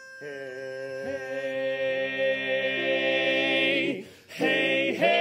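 Male barbershop quartet singing a cappella: a held opening chord that starts just after the beginning and swells for about four seconds, a short break, then the next sung phrase begins.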